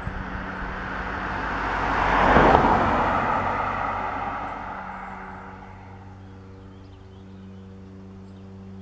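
A road vehicle passing close by, its noise swelling to a peak about two and a half seconds in and then fading away. After that a steady low hum remains, with faint bird chirps near the end.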